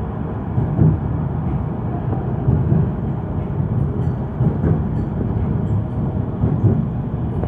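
Manchester Metrolink tram (Bombardier M5000) running along its track, heard from inside the passenger car: a steady low rumble from the wheels and motors, with small uneven swells.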